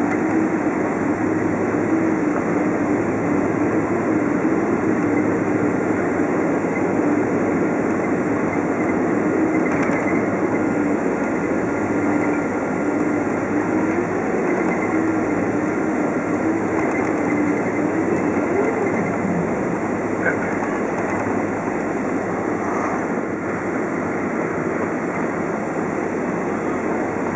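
Boeing 767 cabin noise during the landing rollout: steady engine and runway rumble with a constant hum, heard from inside the passenger cabin as the jet slows, easing slightly near the end.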